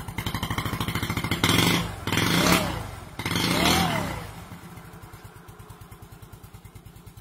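Motorcycle engine idling with an even rapid pulse. It is revved in a few short blips between about one and a half and four seconds in, then drops back to a quieter, steady idle.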